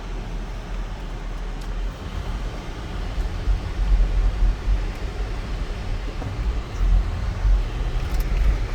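Cabin noise of a 2004 Lexus GX 470 being driven: a low rumble of road and drivetrain that swells and dips, a little louder from about three seconds in.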